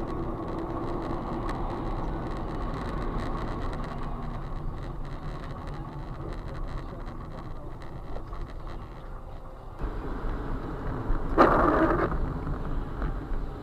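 Car running on the road with a steady engine and road rumble, and a short, louder sound about eleven seconds in.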